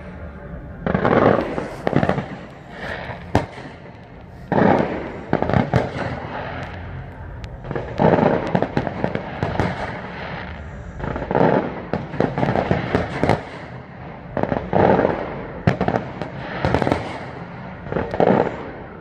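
Aerial fireworks display: shells burst one after another every second or two, with a steady crackle between the bursts.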